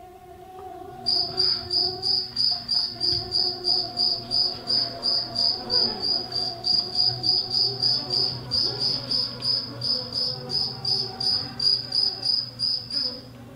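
Cricket chirping in a steady, even rhythm of about three high chirps a second, starting about a second in and stopping just before the end. A faint low hum runs underneath.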